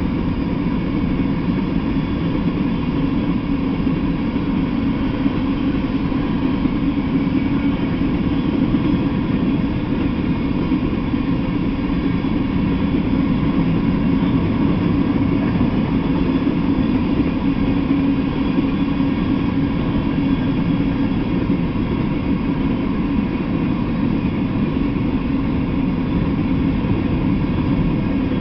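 Freight train of covered hopper cars rolling past: a steady, unbroken noise of steel wheels running on the rails.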